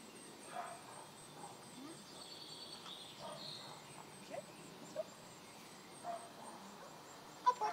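Faint outdoor quiet with a few small chirps, then a dog-training clicker gives a sharp double click near the end, marking the puppy laying the retrieve dummy in the trainer's hand.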